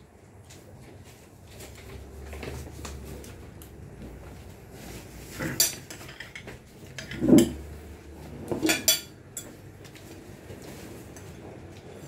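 Plates, metal bowls and spoons clinking and clattering on a meal table, with three louder clatters around the middle.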